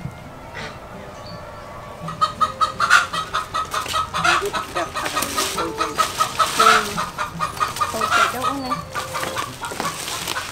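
Chickens clucking, starting about two seconds in, mixed with the crinkling of a plastic bag being handled.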